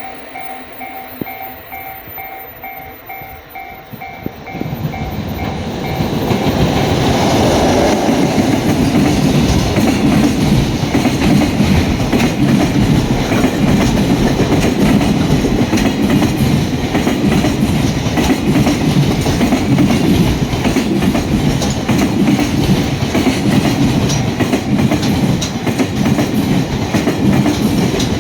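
Railway level-crossing alarm dinging in an even rhythm of about two strokes a second. About four seconds in, a freight train comes up and drowns it out, then passes the crossing with a loud, steady rumble and the clickety-clack of wagon wheels over the rail joints.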